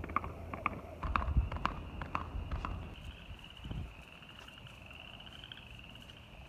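Bare hooves of a gaited mule clopping on asphalt, about three sharp strikes a second, fading out about three seconds in. A steady, high, pulsing trill then carries on.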